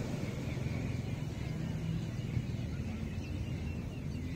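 Beach ambience: a steady low wash of ocean surf, with a faint motor hum underneath.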